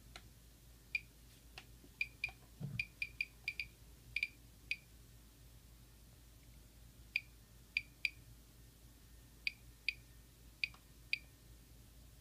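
Geiger counter with an LND 7317 pancake tube giving short, high chirping clicks at random, uneven intervals, about eighteen in twelve seconds. Each click is one detected count, a low rate of roughly 90 counts per minute. One soft low thump about three seconds in.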